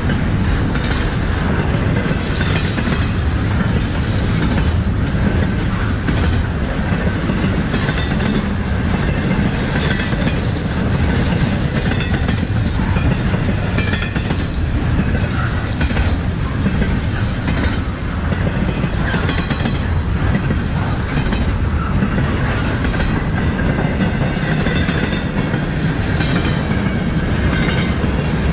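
Cars of an intermodal freight train rolling steadily past, with a continuous rumble and irregular clickety-clack of wheels over the rail joints.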